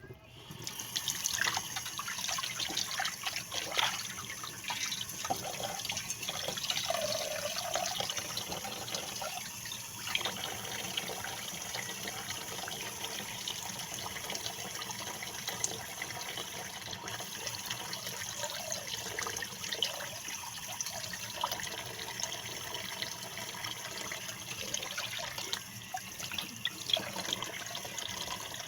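Water running from a tap into a sink while a pompano is washed under it, with small splashes and knocks of handling.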